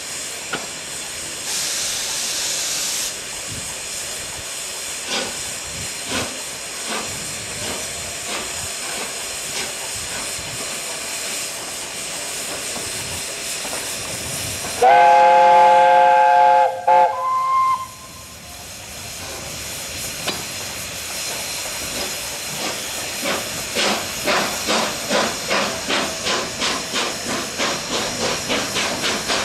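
Steam locomotives hissing steadily. About halfway through, a chime whistle sounds for about two seconds. In the last third, a locomotive's exhaust beats start up, evenly at about two and a half a second and growing louder as it works past.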